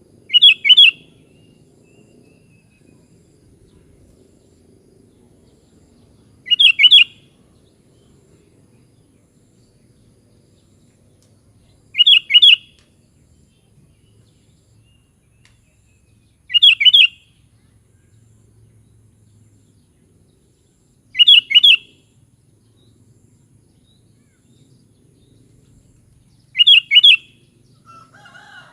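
Sooty-headed bulbul (kutilang) calling: a short, high-pitched phrase of a few quick notes, repeated six times about every five seconds.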